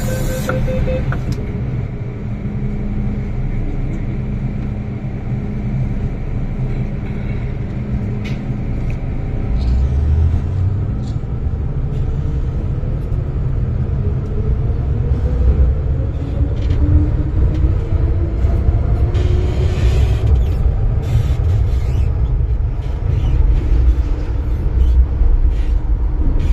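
MTR Kwun Tong Line M-Train traction motors whining with a steadily rising pitch as the train pulls out and speeds up, over the loud low rumble of the car running on the track.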